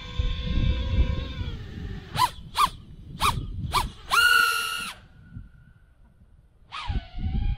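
Brushless motors of a 5-inch FPV racing quadcopter (iFlight Nazgul) whining steadily at idle. Then come four short throttle blips and a full-throttle punch of just under a second. The sound drops away while the quad is high up, and near the end the pitch dips sharply and climbs again as the throttle comes back.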